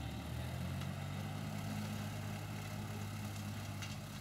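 Shibaura compact tractor's engine running at a steady speed while it drives a rear rotary slasher cutting tall grass.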